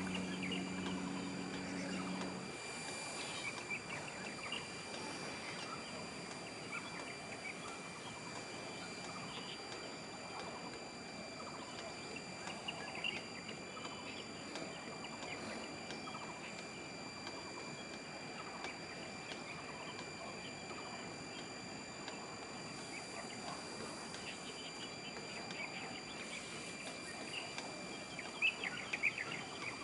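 Open-air harbour background with small birds chirping here and there. A low steady hum sounds for the first couple of seconds and then stops, and a faint steady high tone runs underneath.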